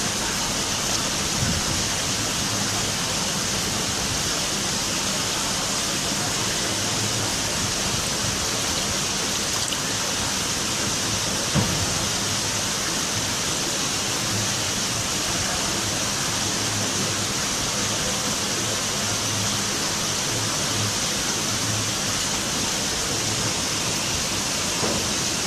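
A steady, unchanging rushing hiss, with a faint knock a little before the middle.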